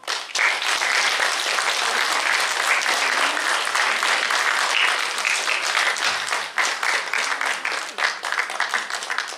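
Audience applauding: dense, steady clapping that starts suddenly and thins out near the end.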